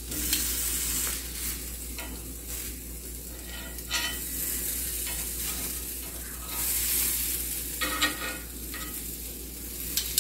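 Vegetable skewers sizzling on a hot iron grill pan, with a few sharp metal clicks as they are turned with tongs. The sizzle swells briefly near the start and again about two-thirds of the way through.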